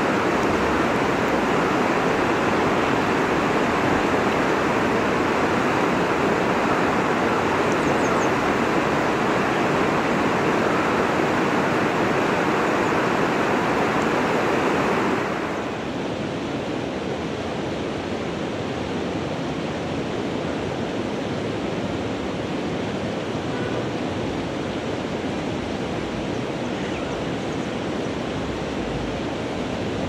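Steady rushing of river water. About halfway through it drops to a quieter, duller rush.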